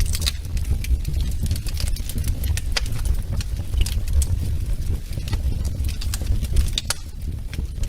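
Wood fire burning in a fireplace: frequent, irregular sharp crackles and pops over a steady low rumble of the flames.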